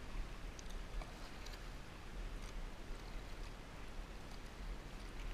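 Kayak paddle strokes: the blades dipping into the river and water dripping and splashing off them in faint, irregular ticks, over a steady low rumble.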